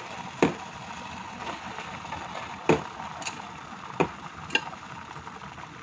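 Sweetened coconut milk boiling in a pan as clumps of cooked glutinous rice go in, with four sharp knocks spread through.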